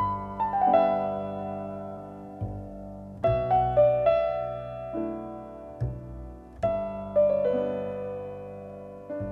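Sparse, slow piano music: small groups of notes struck together or in quick succession, each left to ring and fade before the next group comes about three seconds later.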